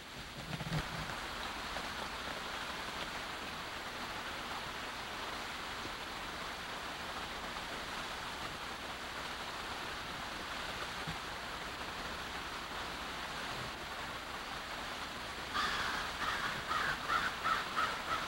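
Creek water rushing over rocks, a steady hiss. Near the end, a rapid series of short calls sounds over the water.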